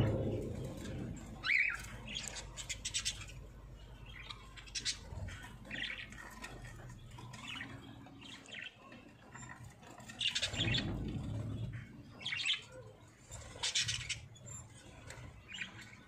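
A flock of budgerigars chirping in short, scattered calls, with a short low rumble about ten seconds in.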